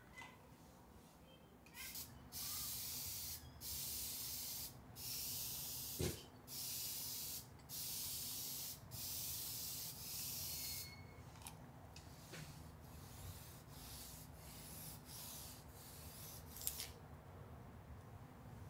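Continuous-mist spray bottle of vinegar-water solution spraying in about seven hissing bursts of about a second each, then a cloth rubbing and scrubbing along a window track.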